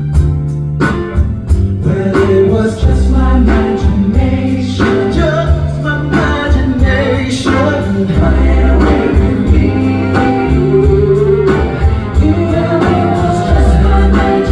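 Live band music with singing over a steady bass line and drum beat.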